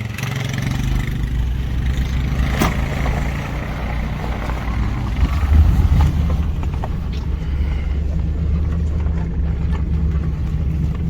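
A vehicle engine running steadily with a low hum, with one sharp click about two and a half seconds in.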